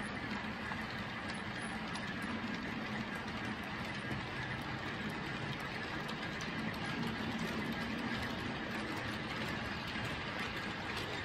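OO gauge model freight train running along the track: wagon wheels rolling and the locomotive's motor humming, a steady rumble that doesn't change.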